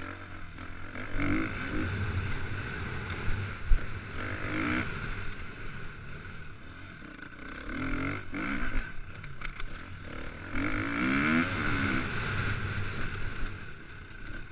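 2014 KTM 250 EXC-F's single-cylinder four-stroke engine under way, revving up and easing off in repeated surges as the bike is ridden over a dirt track, with wind noise on the helmet-mounted camera. A single sharp knock comes about four seconds in.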